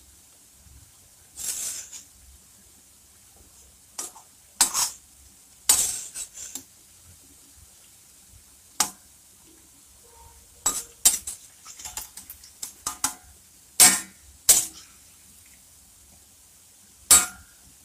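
Perforated metal spoon clanking and scraping against a metal kadhai about a dozen times at irregular moments, a few hits ringing briefly, as fried jaggery puas are scooped out of hot mustard oil. A faint frying sizzle runs underneath.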